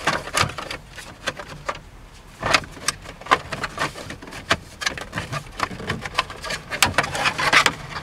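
Plastic steering-column shroud covers on a 1998 Dodge Dakota being pulled apart and worked off by hand: irregular plastic clicks, snaps and rattles, busiest about two and a half seconds in and again near the end.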